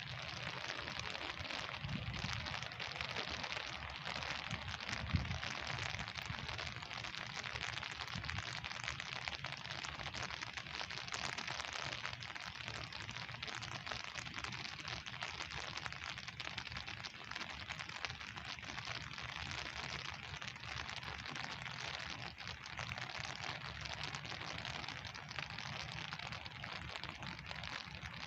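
Pouring rain falling steadily, an even hiss that does not let up, with a brief low knock about five seconds in.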